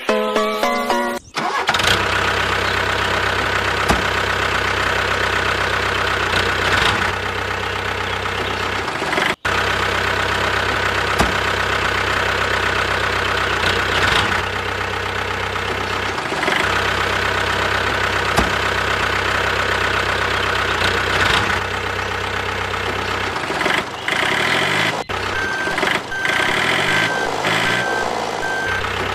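A motor running steadily with a high whine over a low hum, broken by two brief sharp cut-outs, about a second in and near the middle.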